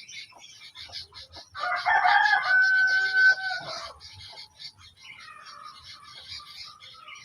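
A loud bird call, about two seconds long, that settles onto one held note, over constant high chirping. A second, weaker wavering call comes near the end.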